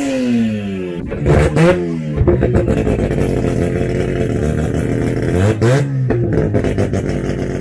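A modified drag car's engine revved hard while standing still: the note drops away, then swoops up in repeated blips and is held high and fluttering for a few seconds before another sharp rise.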